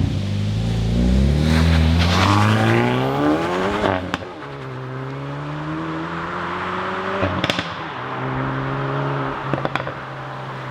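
Hyundai i30 N Performance's 2.0-litre turbocharged four-cylinder engine and exhaust climbing in revs for about three seconds, then cut off sharply. A quieter, steady engine note follows, broken twice by sharp exhaust cracks.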